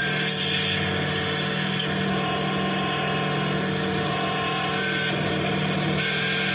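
Synthesizer noise soundscape: a dense, steady drone of hiss over a low hum, with thin held tones fading in and out.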